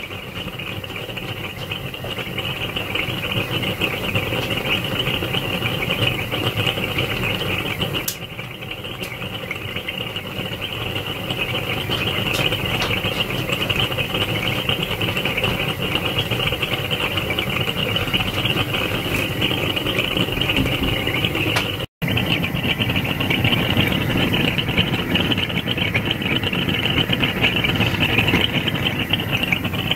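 Propane gas burner with five venturi burner tubes, built for a 5-inch gauge live-steam locomotive, running with a steady hiss and roar. It is burning cleanly on propane at 3 to 4 psi, a blue flame with very little yellow: the burner is working. The sound drops out for an instant about two-thirds of the way through.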